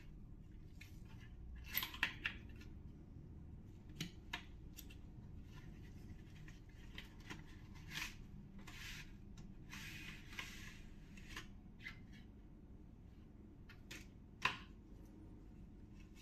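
Cardboard phone-box packaging being handled: an inner cardboard tray slid out of its sleeve with scraping rustles, among scattered sharp taps and clicks, the loudest about two seconds in and near the end.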